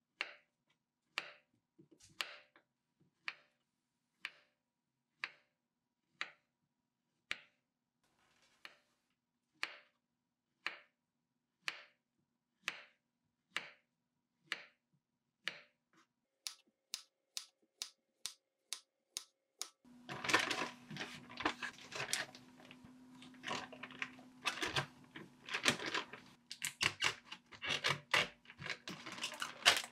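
Kitchen knife slicing a peeled banana into rounds on a wooden cutting board, each cut ending in a knock on the board, about once a second, quicker and lighter toward the middle. From about two-thirds in, a plastic zipper bag crinkles as the slices are put in and the bag is handled and sealed.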